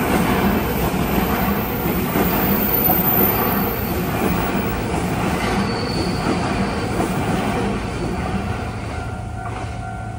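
Electric multiple-unit express train passing over the rails, with steady wheel-on-rail noise and a brief high wheel squeal about halfway through. The sound dies away near the end.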